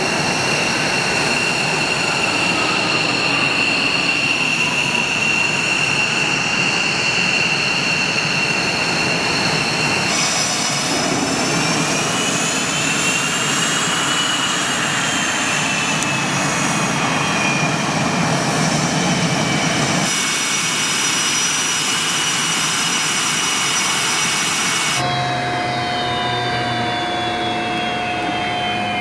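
Fighter jet engines running loud, a steady high turbine whine over a rushing roar, broken into several stretches. In the middle the whine rises and then falls, and near the end several whine tones fall together as an engine winds down.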